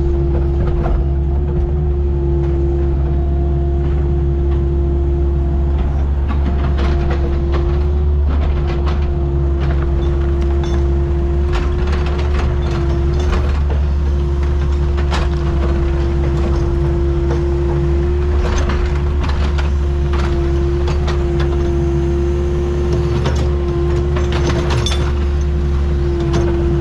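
Excavator's diesel engine running steadily with a constant low drone and a steady higher hum over it, with scattered clanks and knocks as the machine works.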